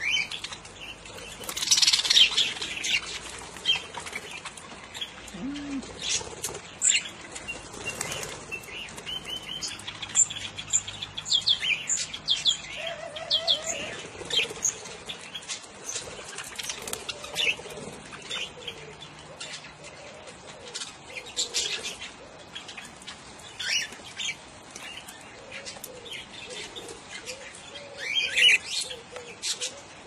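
Budgerigars and cockatiels chirping and warbling, with wings flapping as the birds flutter on and off the feeding cup. There are louder bursts of chirping and flapping about two seconds in and again near the end.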